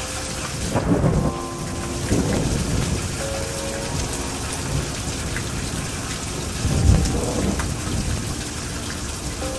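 Steady rain falling in a thunderstorm, with thunder rumbling twice: about a second in and again around seven seconds in.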